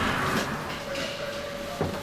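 DEVE hydraulic elevator's sliding car doors finishing their opening slide, loudest at the start and fading within half a second. A steady thin hum follows, with a single thump near the end.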